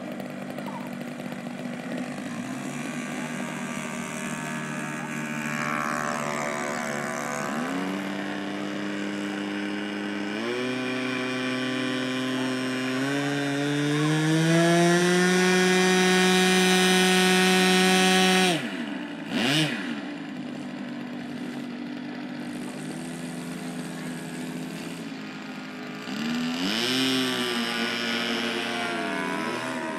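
Radio-controlled Gee Bee model airplane's engine and propeller, idling at first and then throttled up in steps for the takeoff and climb, the pitch rising to its loudest. About two-thirds through the pitch drops sharply. It then rises and falls quickly as the plane passes, and does so again near the end.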